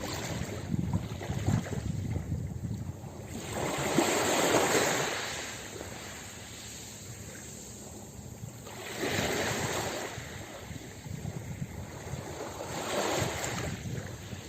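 Ocean waves breaking and washing on a beach, swelling up three times, roughly every four to five seconds, the loudest about four seconds in.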